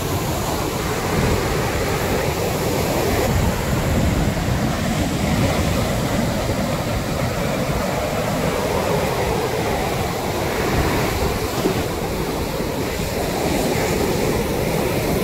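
Sea surf breaking and washing up a sandy beach: a steady rushing noise with no pauses, with wind buffeting the microphone.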